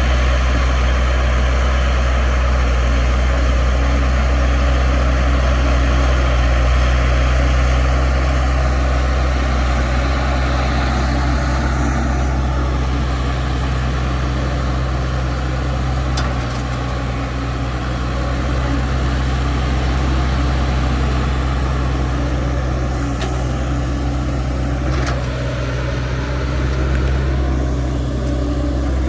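Heavy construction machine's diesel engine running steadily, a loud continuous low drone.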